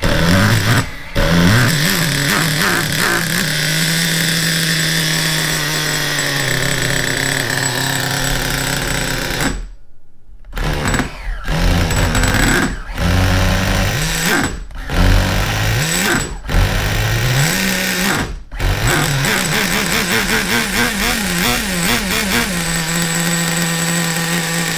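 Nitro glow engine of a Traxxas Nitro 4-Tec RC car cranked on an electric starter box, catching and running in spells that cut off suddenly about five times, each restart rising in pitch. The low-speed needle is set rich ("a little fat on bottom").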